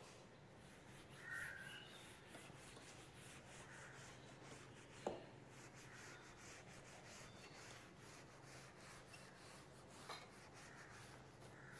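Faint rubbing of a duster wiping a whiteboard, barely above room tone with a steady faint low hum, and a small click about five seconds in.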